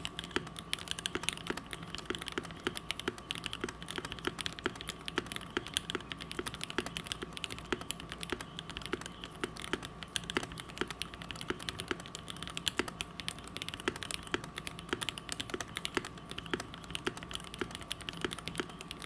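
Continuous fast typing on a Perry Works Mc65 custom mechanical keyboard with an aluminium plate and burger mount: lubed linear switches (Gateron Red Ink housings, Tecsee Ruby stems, 63.5 g long springs) under CRP R4 keycaps, a dense run of keystroke clicks.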